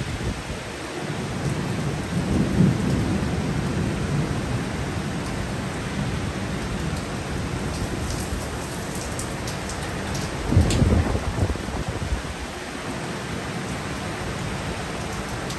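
Heavy rain falling steadily, with thunder rumbling low twice: once about two seconds in and louder about ten and a half seconds in. A few sharp ticks of drops come around the middle.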